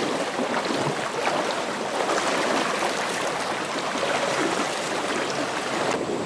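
Shallow rocky river water rushing steadily, close to the microphone, with light splashing from people wading through it.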